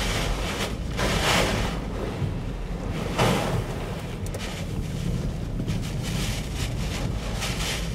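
Nor'easter gale buffeting the microphone over heavy surf, a dense steady roar with two louder surges, about a second in and about three seconds in.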